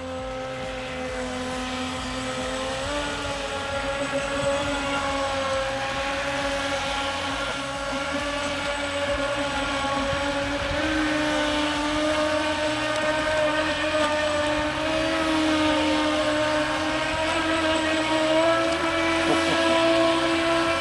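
Rage Black Marlin radio-controlled speedboats, one with a brushed and one with a brushless electric motor, running in tight circles on the water. They make a steady high motor whine whose pitch steps up slightly a couple of times.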